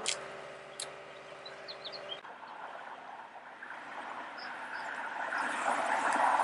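A steady hum inside a moving car's cabin, then a sudden change to a red Ford sedan approaching on the road, its tyre and engine noise growing louder toward the end. A few faint bird chirps.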